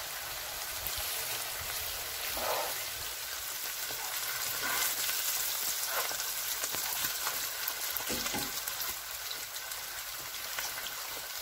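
Sliced onions sizzling in hot oil in a nonstick frying pan, fried for the curry base, while a spatula stirs them, with a few short scrapes along the way.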